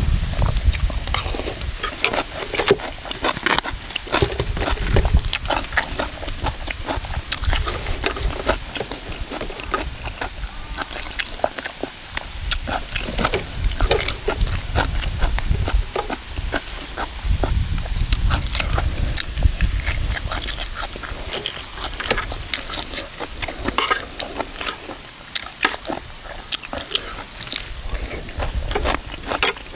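Close-up eating sounds: chewing and crunching of pounded cucumber salad with boiled eggs, with many small wet clicks and smacks. Gusts of wind rumble on the microphone at times.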